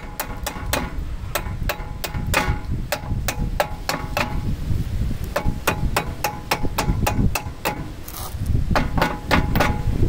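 Hammer striking metal at a 1994 Ford Ranger's front brake caliper, about three sharp blows a second, each with a short metallic ring, pausing briefly twice.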